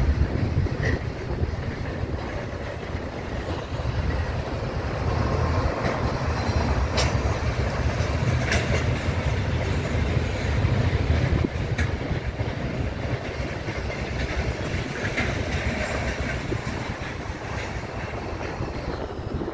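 Container wagons of a broad-gauge freight train rolling past: a steady low rumble with scattered sharp clicks from the wheels, easing slightly toward the end as the last wagons go by.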